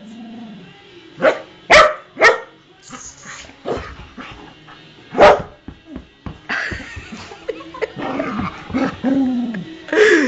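A dog barking: three sharp barks in quick succession a little over a second in, another about five seconds in, then a run of quicker, softer barks and yelps toward the end.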